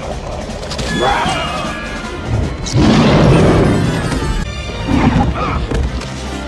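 Dramatic orchestral film score with battle sound effects. A loud crash comes about three seconds in and lasts over a second.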